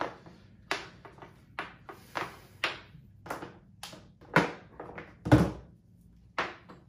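Handling noises from a white charging cable being pulled out of its box and untangled: a run of short clicks and knocks, with a heavier thump about five seconds in.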